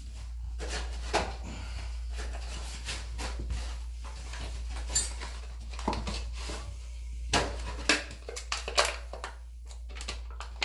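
Irregular handling noises, short rustles, scrapes and clicks, as a second toilet wax ring is readied for a deep flange, over a steady low hum.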